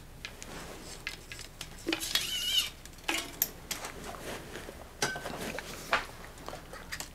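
Small metallic clicks and ticks of a steel brake cable and its housing being handled and fed through a slotted cable stop on a bicycle frame, with a short scraping slide about two seconds in.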